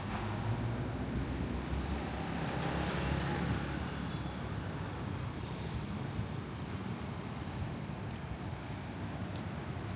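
City street traffic: a steady low rumble of vehicles, with one passing close and swelling louder about one to four seconds in.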